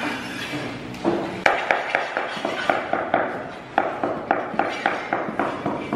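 A rapid series of sharp taps on a large polished porcelain floor tile, about four a second, starting about a second in: the tile being tapped down to bed it into the mortar.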